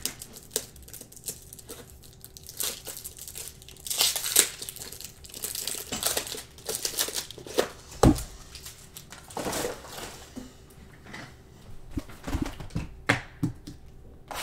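Plastic shrink-wrap crinkling and tearing in irregular bursts as sealed trading-card boxes are unwrapped, with a couple of dull knocks from the boxes being handled on the table.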